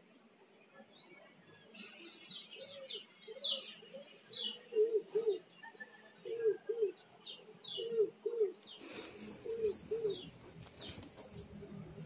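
A dove cooing in low two-note phrases, repeated about every second and a half, with quick high chirps from small birds over the top.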